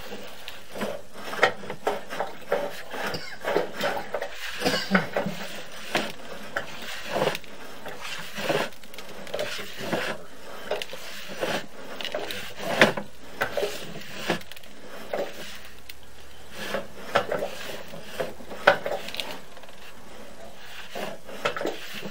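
Sewer inspection camera's push cable being fed along a cast iron sewer line, making irregular clattering knocks and scrapes.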